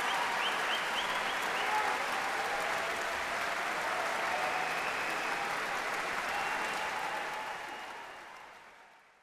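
Audience applauding steadily, fading out over the last couple of seconds.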